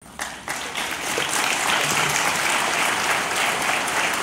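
An audience applauding, many hands clapping in a steady, dense patter.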